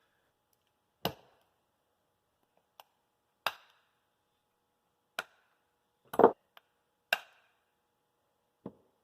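Sharp knocks of metal wheel hardware being worked by hand: about six strong separate strikes a second or two apart with a few lighter ticks between, the loudest a quick double knock about six seconds in.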